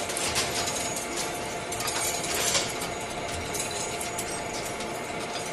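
Machine tool running during a machining operation: a steady mechanical whir with a couple of faint steady hums and scattered clicks and rattles.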